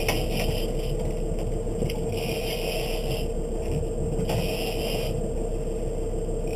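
Boat engine running with a steady hum, while a fishing reel under load whirs in short spells of about a second, twice, as the angler fights a large amberjack.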